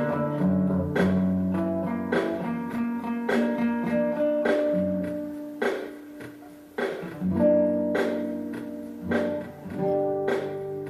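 Guitar strumming slow chords, each struck about once a second and left to ring and fade before the next.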